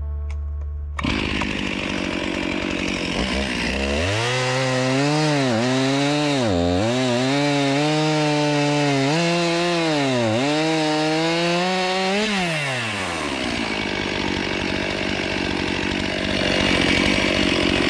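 Stihl MS261 C-M chainsaw, a 50 cc two-stroke, at full throttle cutting a slab off a fallen pine log. The engine pitch dips sharply several times as the chain loads up in the cut, then winds down about twelve seconds in as the saw comes off the throttle.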